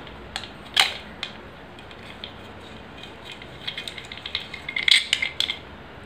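A small screwdriver unscrewing a metal screw from a red plastic part, making scattered metallic clicks and light scraping. There is a sharper click a little under a second in and a quicker cluster of clicks near the end.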